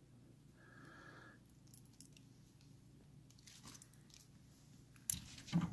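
Hand wire crimper squeezing and working a small insulated connector onto an ignition wire: faint scattered clicks and crunches, with two sharper, louder clicks near the end.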